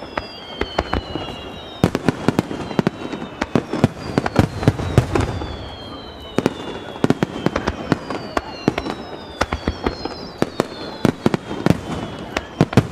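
Aerial fireworks bursting in rapid, irregular succession, with many sharp bangs echoing back off the surrounding mountains. Several whistles fall slowly in pitch between the bangs.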